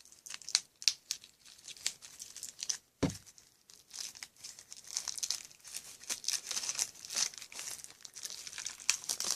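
Plastic wrapping on a trading card box set crinkling and tearing as it is opened: a run of irregular crackles, with one dull knock about three seconds in.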